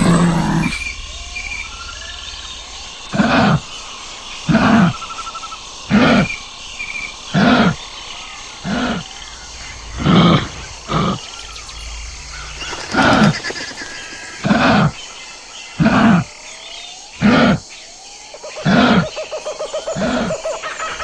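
Kangaroo calling: a short, low call repeated about every second and a half, over a dozen in all, starting about three seconds in. Faint bird chirps are in the background.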